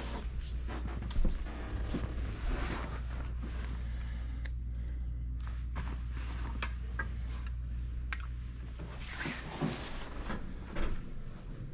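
Clothes on hangers being handled and pushed along a rack: scattered sharp clicks and short rustles of fabric over a steady low hum.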